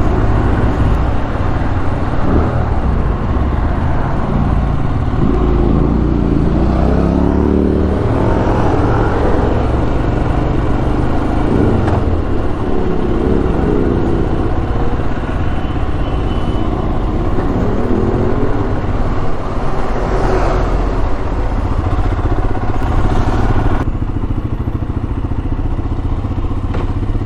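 Royal Enfield Himalayan's 411 cc single-cylinder engine running on the move. Its note rises and falls several times as the bike accelerates through the gears and eases off, over a steady low rumble of wind and road noise.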